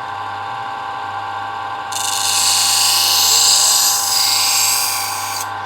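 Small power tool running with a steady whine. From about two seconds in, for about three and a half seconds, a loud hiss of it grinding against the steel of a knife blade.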